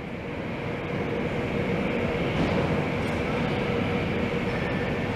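Twin-engine Airbus narrowbody jet's turbofan engines at taxi power: a steady jet rumble with a constant whine, growing somewhat louder over the first couple of seconds as the aircraft taxis closer.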